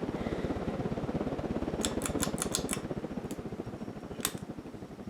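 Hunter Reversaire ceiling fan running, its sharply pitched blades pushing air in a fast, even low pulsing that grows fainter in the second half. A quick run of sharp clicks comes about two seconds in, and one more click a little after four seconds.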